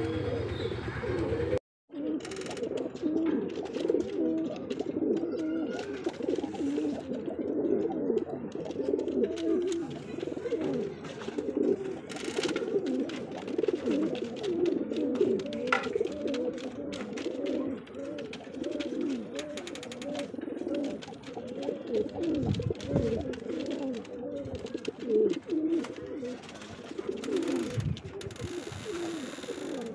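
Domestic Andhra high flyer pigeons cooing continuously, several birds calling over one another, with a brief dropout just under two seconds in.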